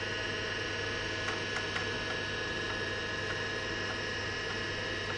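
Wyse 286 PC running as it boots from its 3.5-inch floppy drive: a steady electrical hum with several faint steady high tones, and a few faint ticks from the floppy drive as it reads.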